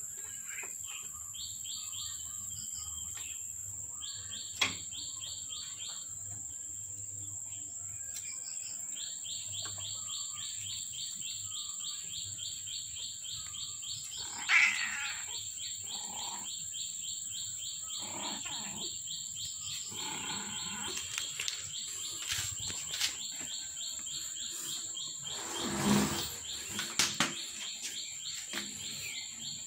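A fast, even chirping trill with a steady high whine behind it runs through most of the stretch. Over it come a few sudden knocks and scuffles, loudest about 14 and 26 seconds in, as kittens play and scramble over mats and a metal frame.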